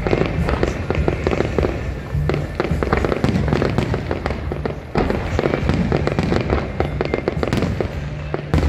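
Aerial fireworks going off: a dense, continuous series of bangs and crackles, with a sharper bang about five seconds in and another near the end.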